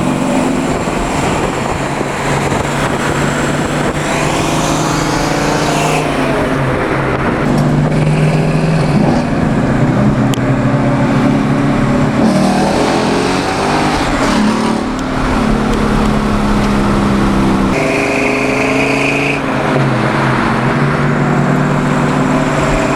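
Car engine running while driving, its pitch holding steady and then shifting to a new level several times as the revs change, with a brief high whine about three-quarters of the way through.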